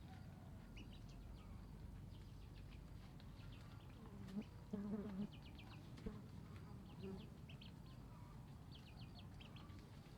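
Small birds chirping in quick little clusters, with a few short low calls from poultry, duck or chicken, about four to five seconds in and again near seven seconds.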